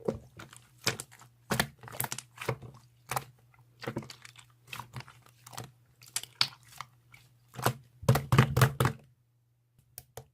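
Handwriting on paper: quick, irregular scratchy pen strokes with brief pauses between words, over a low steady hum. A dense run of strokes comes near the end, then the writing stops, leaving only faint ticks.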